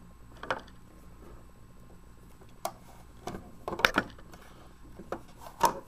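Handling of a clear plastic trail camera case and its pipe: a few scattered plastic clicks and knocks, with a cluster in the middle and one near the end.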